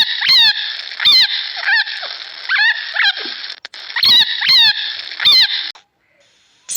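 An animal's repeated high, squeaky calls, about nine of them, each falling in pitch, over a steady hiss. They stop about a second before the end.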